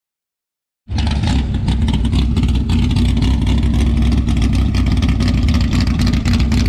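Vehicle engine running steadily with a rapid, rough pulsing. It cuts in abruptly about a second in, after a moment of dead silence.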